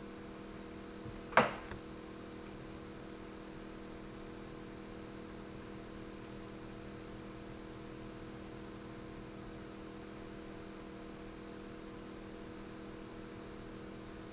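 Steady electrical mains hum with several low tones, broken about a second and a half in by one sharp tap and a fainter one just after.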